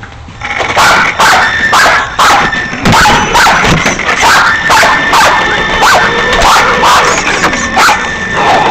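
Small black puppy barking repeatedly close to the microphone, about two to three barks a second, starting about half a second in.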